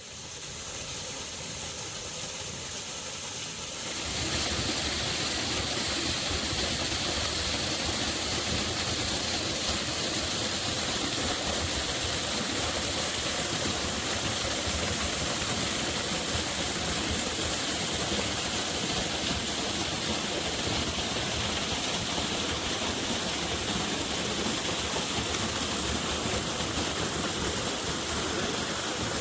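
Waterfall rushing in a steady, even roar of falling water, growing louder about four seconds in.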